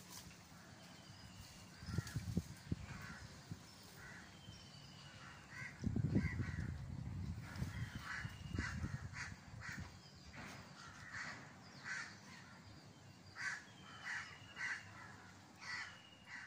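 Birds calling repeatedly in short calls, coming thicker in the second half, with a few thin falling whistles now and then. A louder low rustling spell comes about six seconds in.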